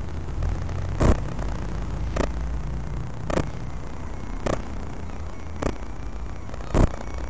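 Low, steady rumble of street traffic and wind on a body-worn camera's microphone, with a sharp knock repeating evenly a little less than once a second.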